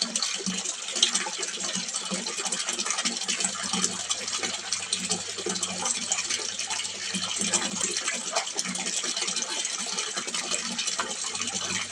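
Water splashing steadily into a small fish pond, a continuous dense patter of small splashes, with a low hum underneath.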